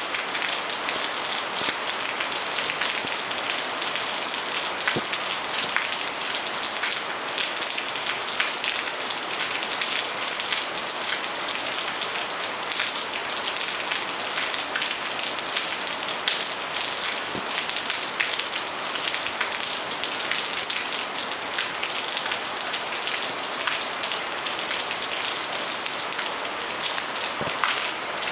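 Steady rain falling on a garden and patio, heard from a living-room window: an even, dense hiss of drops with many small splashes and ticks.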